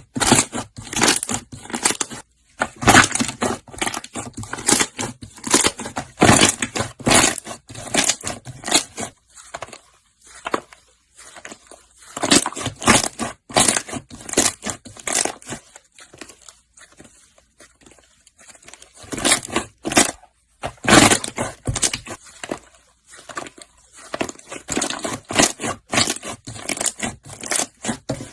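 Slime being squished, stretched and pressed by hand: runs of wet crackling pops and clicks, with a couple of quieter pauses.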